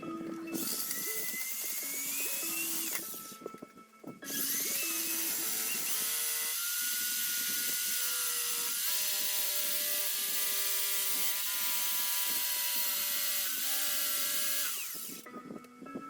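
A power tool cutting a wood-floor panel. It runs for about three seconds, stops for about a second, then runs steadily again for about eleven seconds before cutting off near the end.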